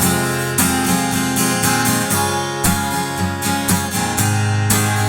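Acoustic guitar strummed in a steady rhythm, playing the song's intro chords.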